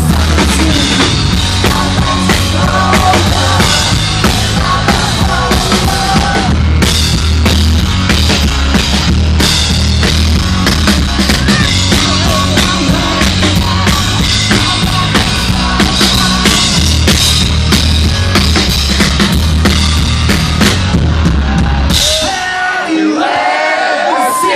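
Live rock band playing loud, with driving drum kit and heavy bass, recorded in the audience. About 22 seconds in the band stops and the crowd breaks into cheering and screaming.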